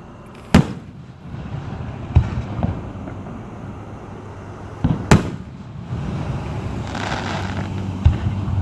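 Fireworks display: two sharp bangs of aerial shells about four and a half seconds apart, with duller thumps between them and a spell of crackling about seven seconds in.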